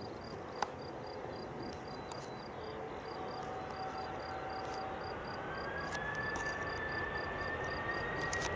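Distant Airbus A310-300 jet engines running with a steady rush and a thin whine that begins to rise slowly in pitch about five seconds in as the airliner lines up on the runway. An insect chirps in the grass about three times a second throughout.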